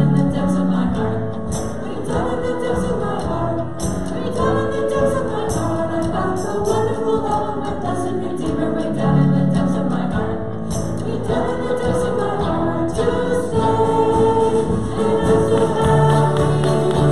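Congregation singing a hymn or worship song together, with instrumental accompaniment.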